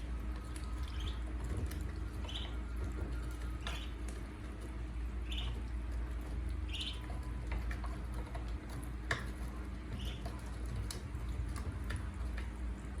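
Ducklings peeping, short high chirps coming every second or two, over a steady low rumble, with a couple of sharp clicks about four and nine seconds in.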